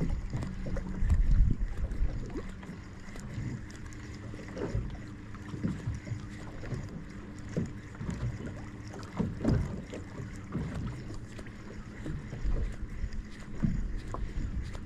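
Water lapping and slapping against a small boat's hull in irregular low knocks, with wind on the microphone and a low steady hum underneath.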